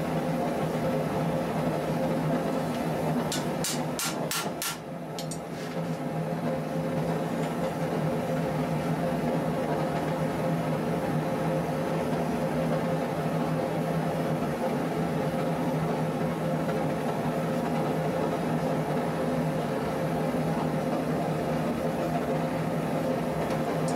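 Steady mechanical hum, with a quick run of about six light clicks around three to five seconds in.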